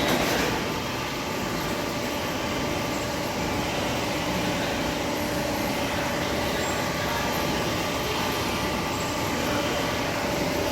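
Heavy-duty lathe running: a steady mechanical hum with a few faint, constant tones.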